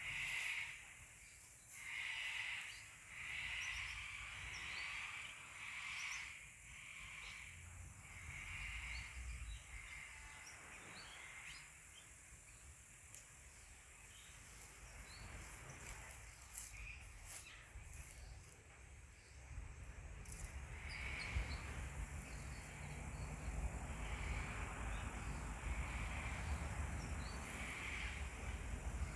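Birds calling: rough calls about a second long, repeated one after another, with faint higher chirps around them. From about two-thirds of the way in, wind rumbles on the microphone.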